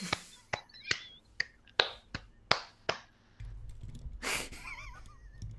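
A person clapping their hands over a video call: about eight sharp claps, roughly two a second, followed a little past four seconds by a short burst of noise.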